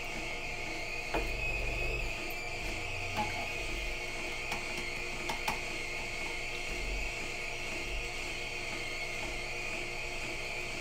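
Green Star twin-gear juicer running with a steady hum while firm beet pieces are pushed into its gears, with low rumbles that come and go and a few sharp clicks as they are crushed.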